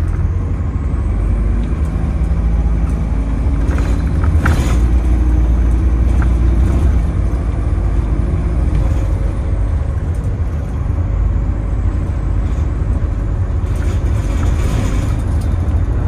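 Inside an Optare Versa single-deck bus on the move: engine and road noise with a steady low rumble. The engine note climbs over the first few seconds as the bus accelerates, and there is a brief clatter about four seconds in and another near the end.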